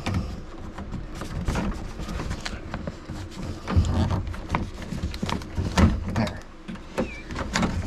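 Scattered clicks, knocks and rattles of a car door's interior handle mechanism being worked by hand, as the linkage rod and its retaining clip are pried loose from the handle, with a couple of heavier knocks midway.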